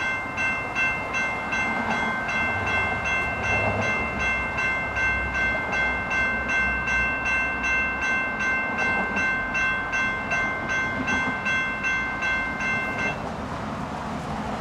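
Two GS Type 2 electronic crossing bells ringing at a railroad crossing, a rapid ding-ding about two to three strikes a second. They cut off about 13 seconds in: the crossing timing out after an early activation, with no train arriving.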